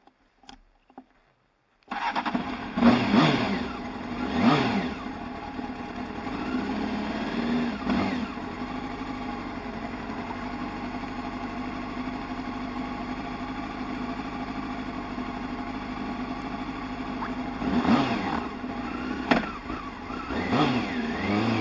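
Motorcycle engine starting about two seconds in after a few faint clicks. It is revved twice, then idles steadily, with more quick throttle blips near the end.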